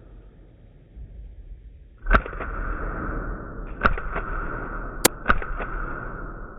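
Airsoft gunfire: several sharp, irregularly spaced shots over a steady whirring hiss that starts about two seconds in.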